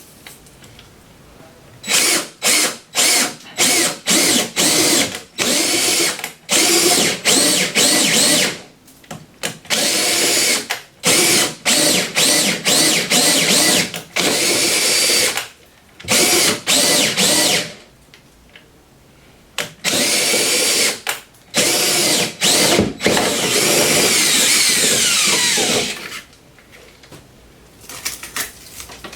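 Electric power drill run in many short trigger bursts and several longer runs of a few seconds each, its motor winding down in falling pitch near the end.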